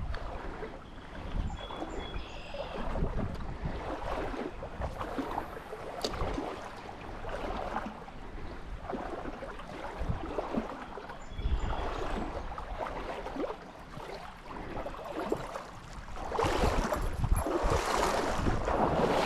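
Trout stream water running, with wind buffeting the microphone and low bumps. The rushing grows louder about three seconds before the end.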